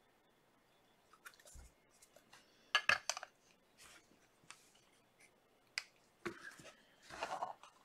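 Faint clicks, taps and rustles of a hard plastic card holder being handled and set on a display stand, with the loudest clicks about three seconds in and another burst of handling near the end.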